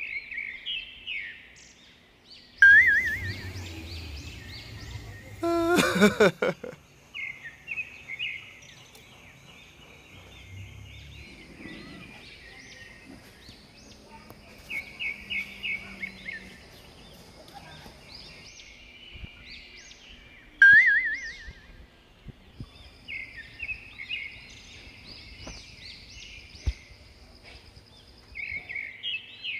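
Birds chirping and trilling in short, repeated high calls, with a loud sliding pitched sound about six seconds in.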